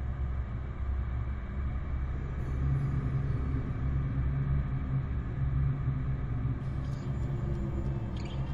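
A low, steady rumbling drone, with faint high ticking coming in near the end.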